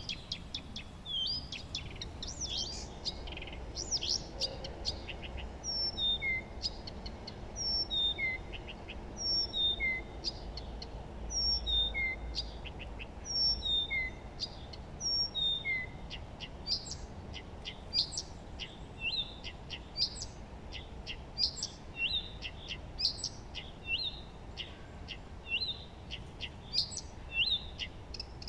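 Several songbirds singing together, a steady mix of short high chirps and whistles; for a while in the first half one bird repeats the same short falling phrase every second or two.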